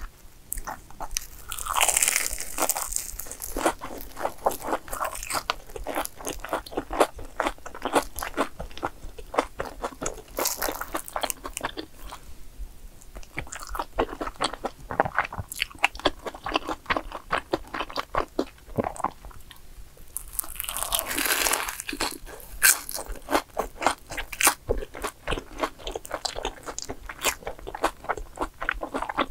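Crunching bites and chewing of fried, cheese-filled sweet rice dough snacks (cheese balls and a mozzarella stick), with louder crunchy bites about two seconds in, around ten seconds in and about two-thirds of the way through.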